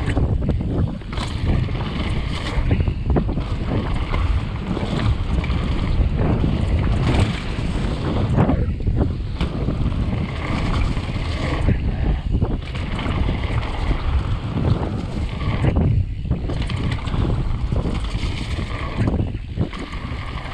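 Mountain bike riding fast down a wet gravel path: steady wind buffeting on a helmet-mounted camera's microphone, with tyre crunch and frequent short knocks and rattles from the bike over the rough surface.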